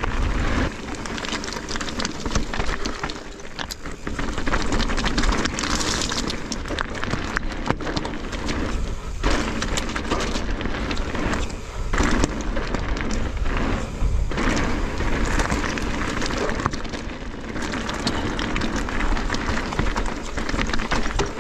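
Mountain bike ridden fast down a rough, rocky trail: a constant rush of wind on the microphone and tyre noise, with frequent sharp clattering knocks as the bike rattles over rocks.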